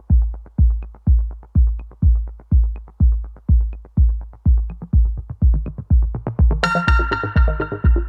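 Electronic dance music: a steady four-on-the-floor kick drum at about two beats a second, with a bright synth melody coming in near the end.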